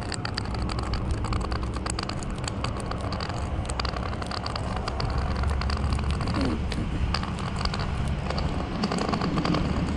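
A white cane's ball tip rolling and tapping over rough asphalt as someone walks: a run of quick, irregular clicks and scrapes over a low, steady rumble.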